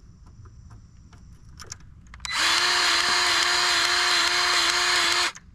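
Cordless grease gun motor running steadily at one pitch for about three seconds, pumping grease into a fitting. It starts about two seconds in and stops suddenly.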